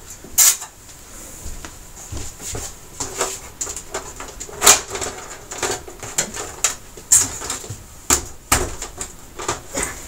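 Plastic back cover of a flat-screen TV being pressed down and pushed off its snap-in clips: irregular clicks, snaps and knocks of the panel, the loudest about halfway through.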